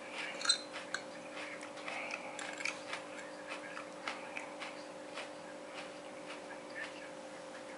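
Metal fork tapping and scraping against a plate while mixing and scooping rice, as irregular light clicks, with one sharper clink about half a second in.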